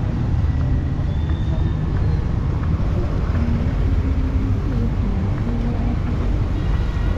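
Outdoor street ambience: a steady low rumble of passing traffic, with faint voices in the background.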